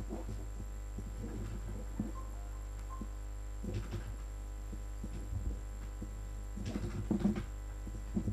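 Steady low electrical hum, typical of mains hum in a home vocal recording, with a few faint, brief soft sounds now and then.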